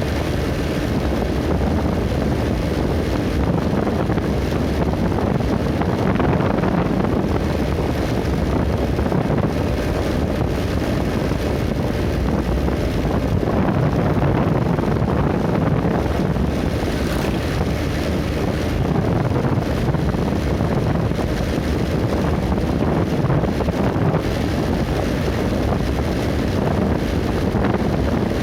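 Wind rushing over the microphone on a moving vehicle, with a steady road and engine rumble underneath.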